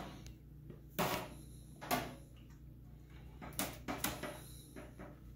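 Sharp, irregular clicks and knocks as LED tube lamps are handled and snapped into the lampholders of a sheet-metal fluorescent troffer, with the tube ends tapping the housing. A steady low hum runs underneath.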